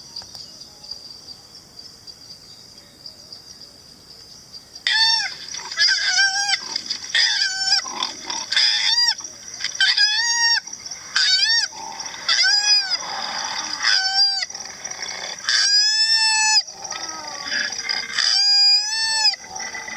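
Recorded koala calls: a run of about a dozen short pitched calls, each rising then falling in pitch, coming roughly one a second from about five seconds in, over a steady background chorus of insects.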